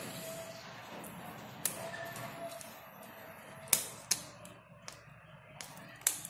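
A few separate sharp metallic clicks and taps as a screwdriver works a hose clamp tight on a spray gun's brass hose connector, the loudest about two-thirds of the way through.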